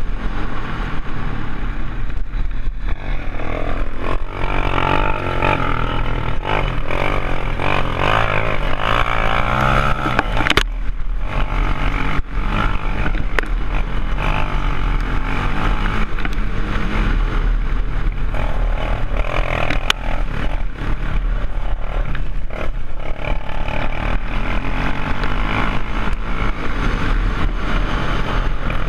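Sport ATV engine running hard at speed, its pitch stepping up and down with throttle, over a constant rush of wind and rough-ground noise.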